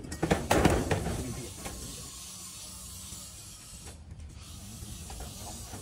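Metal knocks and clatter of a steel channel being handled on corrugated galvanized steel roofing sheets in the first second, then a steady hiss.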